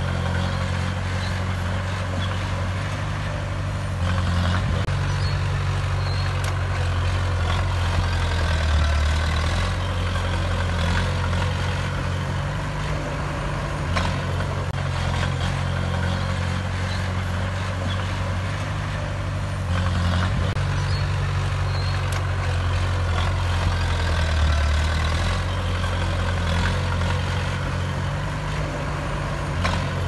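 Small crawler bulldozer's diesel engine running steadily under load while it pushes soil and rocks, with a few sharp metallic knocks from the tracks and blade. The engine note steps up at about four seconds and again around twenty seconds.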